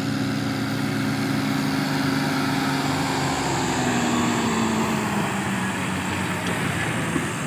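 Farm tractor's diesel engine running hard as it drives across sand, a steady drone whose pitch sags slightly a few seconds in, with a broad hiss of wind and movement over it.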